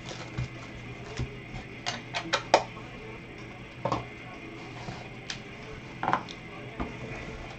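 Gloved hands handling trading cards in plastic holders and a cardboard box on a tabletop: a series of sharp clicks and taps, the loudest about two and a half seconds in. Faint background music runs underneath.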